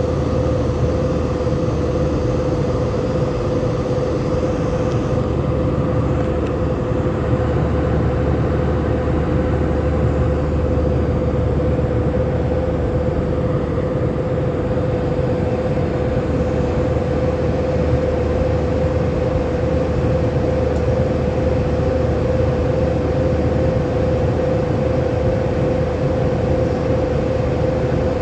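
Airbus A320 cabin noise in flight: a steady jet engine and airflow rumble with a constant hum riding over it.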